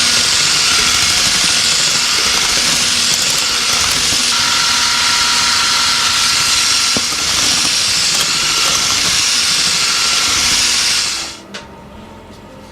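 Electric mixer running steadily, beating the cake batter, with a faint motor whine that shifts slightly about four seconds in; it switches off about a second and a half before the end.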